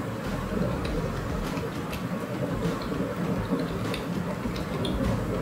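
Computer keyboard keys clicking at an irregular pace as an email address is typed, over a steady background hum.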